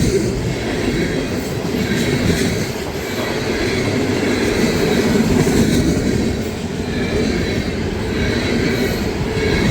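Freight cars of a CSX manifest train rolling past: a steady rumble of steel wheels on rail, with irregular clicks as the wheels cross rail joints.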